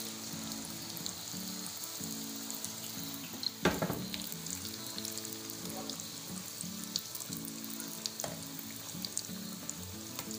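Spiral dough pakwan deep-frying in hot oil in a pan, a steady sizzle with fine crackling. One sharp knock a little under four seconds in.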